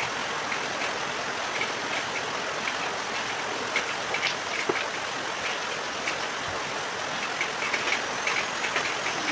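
Heavy rain falling steadily, with scattered small drips and ticks over the even hiss.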